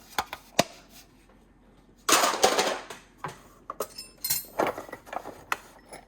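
Steel sockets clinking and rattling as a small socket set is handled: scattered sharp clicks, with a longer rattle about two seconds in.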